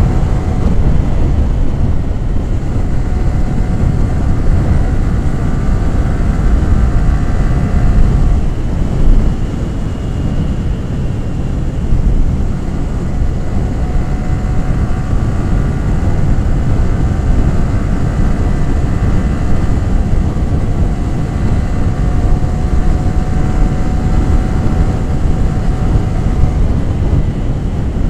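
Yamaha R15 V3's 155 cc single-cylinder engine and exhaust running under way, with a dense rush of wind on the microphone. The engine eases off briefly about a third of the way through, then picks up again.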